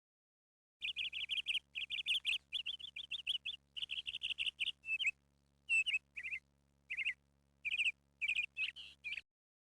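A small bird chirping in quick runs of high, trilled notes, starting about a second in, with the groups spacing out into short separate calls later on. A faint low hum runs under it, and both cut off abruptly near the end.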